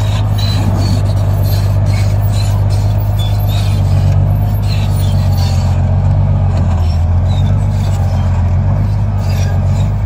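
Komatsu D50A-17 crawler bulldozer's diesel engine running under load as the dozer cuts into an earth bank with its blade, with clanking from the steel tracks and scraping of soil. The engine grows a little louder about four seconds in.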